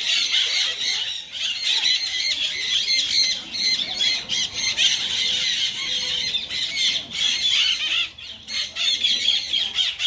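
A flock of green parakeets calling together: many overlapping high calls, one on top of another without a break.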